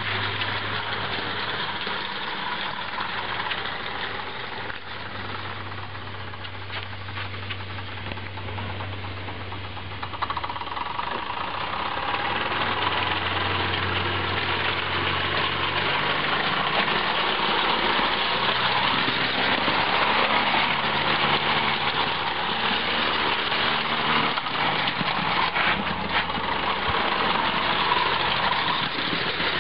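Wilesco D14 toy steam engine, converted into a locomotive with a spring belt driving the axle, running along garden-railway track: a steady hissing, whirring mechanical sound with the wheels running on the rails. It gets louder about ten seconds in.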